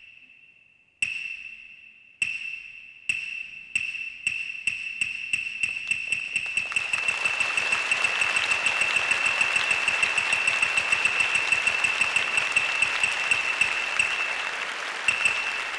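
Hyoshigi wooden clappers struck in the kabuki curtain-opening pattern, the signal for the curtain to open: single ringing clacks far apart at first, then faster and faster into a rapid roll. Audience applause swells in about six seconds in and carries on under the strokes.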